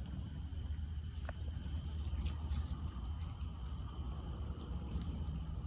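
Steady, high-pitched trilling of an insect chorus, with a low rumble underneath.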